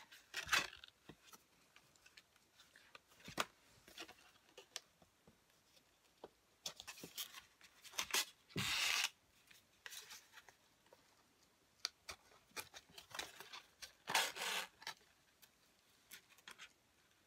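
Ribbon pulled through a row of punched holes in a sheet of card, with paper rustling and light handling taps; two longer rubbing pulls, one about nine seconds in and one about fourteen seconds in.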